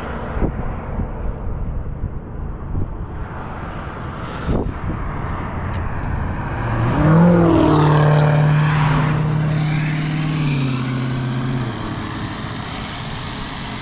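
A full-size car driving past on the road: its engine and tyre noise build to the loudest point about eight seconds in, then the engine note drops in pitch and fades as it moves away. A couple of short knocks come earlier.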